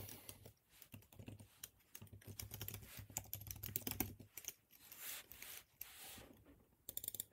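Faint typing on a computer keyboard: irregular keystrokes with short pauses, and a quick flurry of keys near the end.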